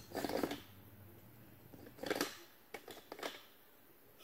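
Handling noise: a few short scraping and clicking bursts, near the start, about two seconds in and a quick cluster of clicks around three seconds in, over a quiet room.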